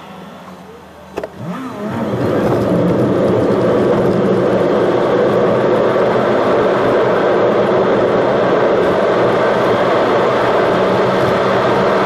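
A car pulling away from a standstill, heard from inside the cabin: a click about a second in, the engine rising in pitch as it accelerates, then steady loud engine and tyre noise as it drives along.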